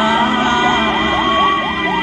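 Ambulance sirens in traffic: a slow rising-and-falling wail overlapping a fast yelp of several sweeps a second, over a steady rumble of engines.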